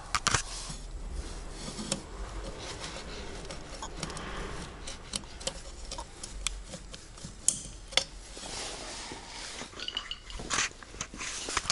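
Small metal drum-brake parts and tools clinking and tapping as they are handled: scattered light clicks and clinks over a faint low hum.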